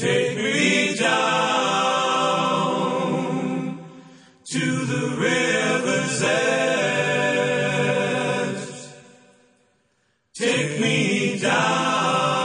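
Slow choral music with held, layered voices in long phrases: the first phrase fades out about four seconds in before the voices return, and the second fades to silence near ten seconds before a third phrase begins.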